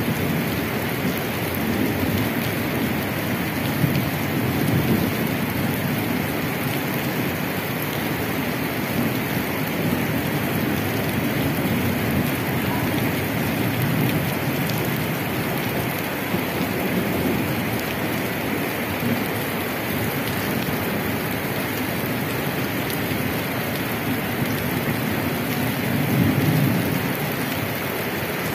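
Steady heavy rain falling on wet pavement and rooftops, an even hiss of drops and splashing. A low rumble swells and fades a few times, loudest near the end.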